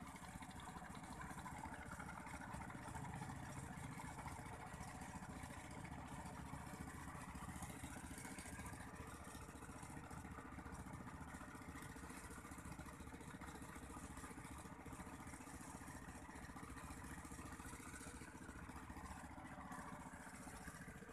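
Faint distant engine running steadily, its pitch rising and falling a few times, over quiet outdoor background noise.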